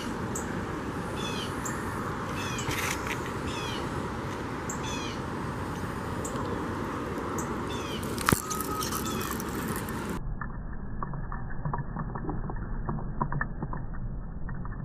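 Wind buffeting the microphone, with birds chirping repeatedly over it. About ten seconds in the sound changes abruptly to a duller outdoor track with scattered small clicks and a small splash of a lure hitting the water near the end.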